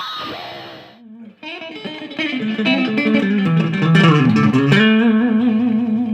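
Guitar playing a fast country chicken-pickin' lick, picked with pick and fingers: a note dies away, then after a short pause a quick run of notes follows, ending on a long held note with vibrato.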